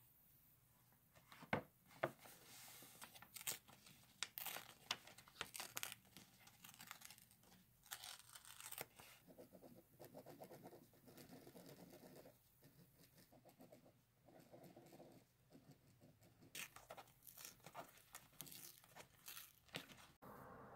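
Paper being torn and handled close up: short rips and crinkling, with a few sharp taps, the two loudest of them about a second and a half and two seconds in.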